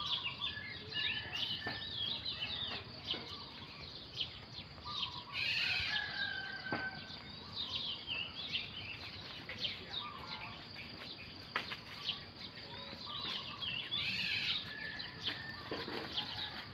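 Several birds chirping and calling over and over, short rising and falling chirps, over a steady background hiss.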